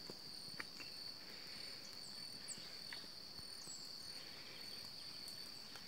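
Faint outdoor ambience: a steady high-pitched insect trill, with a few short high bird chirps.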